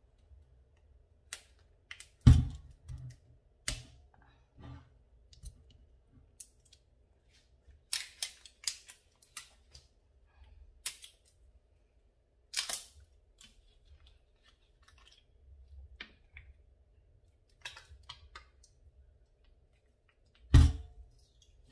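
Irregular clicks, taps and a few sharper knocks from handling kitchen items, as a vinegar bottle is opened and its small plastic cap is set down on the wooden cutting board. The loudest knocks come about two seconds in and near the end.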